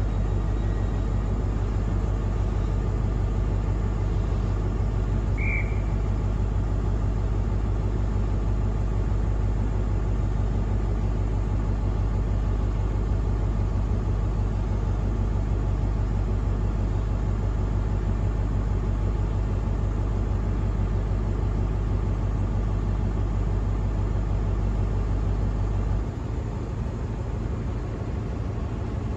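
Class 43 HST power car's MTU diesel engine idling steadily with a deep rumble. Near the end the rumble steps down and the engine note changes.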